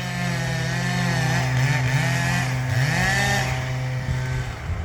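Chainsaw running hard as it cuts the notch at the base of a large tree, dipping briefly in pitch about three seconds in and then cutting off near the end.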